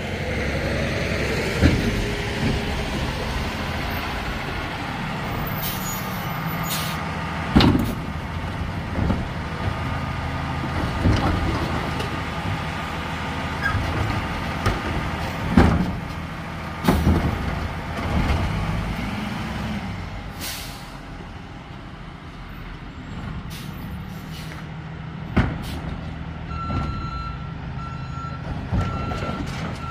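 Freightliner M2 garbage truck with a Labrie Helping Hand side-loader: its diesel engine is running, with air-brake hisses and several loud clanks. Near the end its reversing alarm starts beeping steadily.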